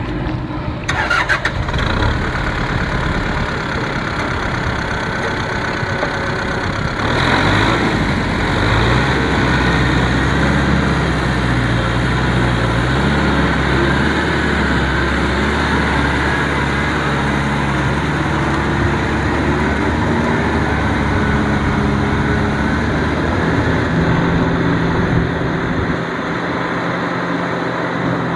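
Kubota M6040SU tractor's four-cylinder diesel engine running hard under load as it drags a rotary tiller through deep mud and water. The engine note climbs about seven seconds in and shifts pitch again later on.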